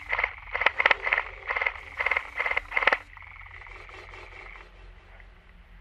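Airsoft electric guns (AEGs) firing short rapid bursts, about eight quick rattling bursts in the first three seconds. A fainter continuous rattle follows and stops a little before the end.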